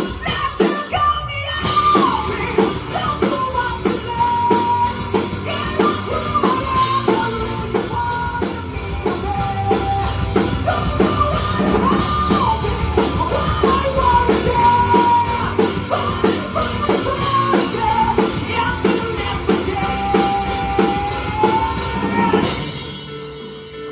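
Rock music with drum kit and guitars, with a high melodic line sliding between notes and no lyrics; it thins out about a second before the end.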